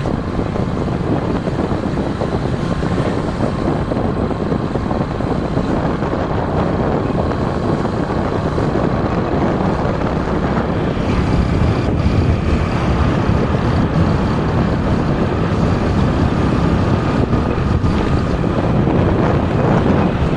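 Wind buffeting the microphone on a moving motorcycle, with engine and road noise underneath as a steady rumble that grows a little louder about halfway through.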